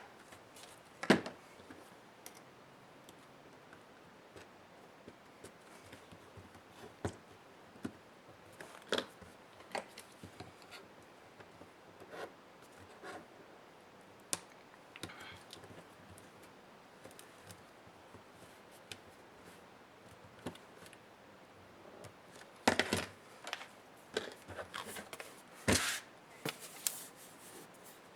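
Scattered clicks, taps and short scrapes of plastic and metal laptop parts being handled and pried apart during disassembly, with a busier run of sharp clicks near the end.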